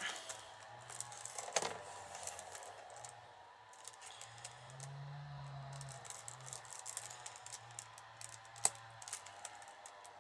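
Light irregular clicking and rustling of wooden rods and basket stakes being handled during wicker basket weaving.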